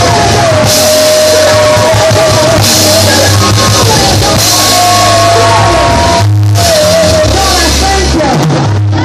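Drum kit played hard and close in a live band, with several crash cymbal hits washing over sustained held melody notes. The music briefly drops out just after six seconds in.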